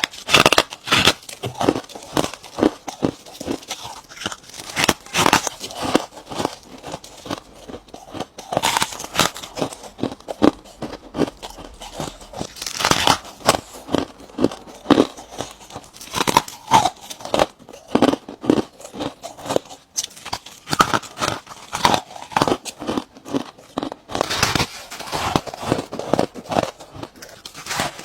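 Ice being bitten and chewed close to the microphone: loud, rapid crunching in repeated clusters of sharp cracks.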